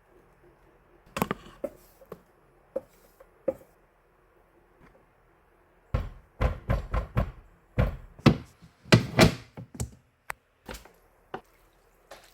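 Kitchen things being handled: a few light knocks, then a quick cluster of heavier knocks and thuds about halfway through, as objects are set down and moved about.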